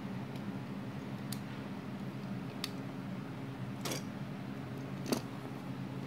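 Plastic Lego bricks clicking and knocking as they are handled and pressed together, about five separate sharp clicks with the loudest near the end. A steady low hum runs underneath.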